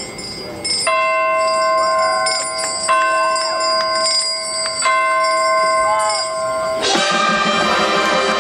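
Bell tolling, struck three times about two seconds apart, each stroke ringing on until the next, as part of a marching band's bell-tower show. Near the end the full band comes back in.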